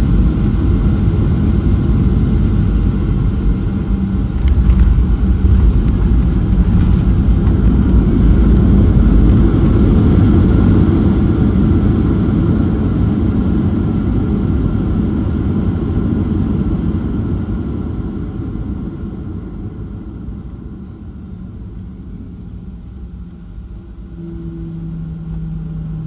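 Cabin sound of a Boeing 737-700 on its landing rollout: a loud rumble of CFM56 engines and wheels on the runway. It grows loudest in the first ten seconds or so as the aircraft brakes, then fades as the engines spool down and the aircraft slows, leaving a lower, steady hum near the end.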